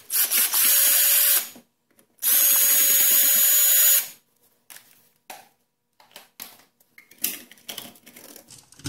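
Cordless drill/driver backing out the outlet's mounting screws: two runs of the motor with a steady whine, about a second and a half and then about two seconds long. Light clicks and knocks follow as the outlet is worked loose from the box.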